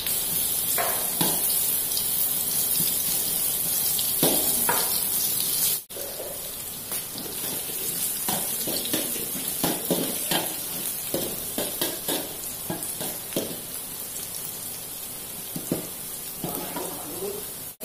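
Sliced shallots and garlic sizzling in hot cooking oil in an aluminium wok, with a metal spatula scraping and clinking against the pan as they are stirred.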